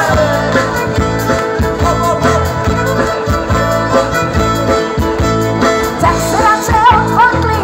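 Live folk-rock band playing an instrumental passage: fiddle, electric guitar, bass guitar and drum kit over a steady beat.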